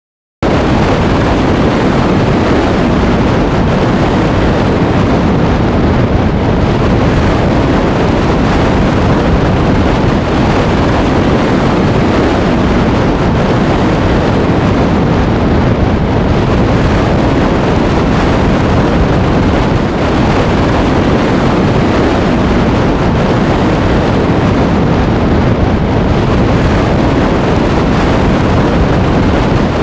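Loud, steady rushing noise with a deep rumble underneath, unbroken, cutting in abruptly about half a second in after a brief dropout.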